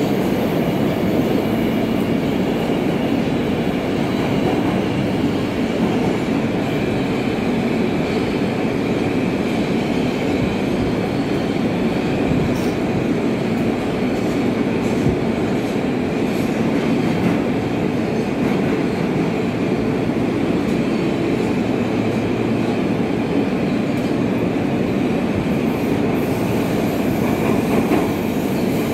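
New York City F subway train running through a tunnel, heard from inside the car: a steady rumble of wheels on rail with a faint high whine above it.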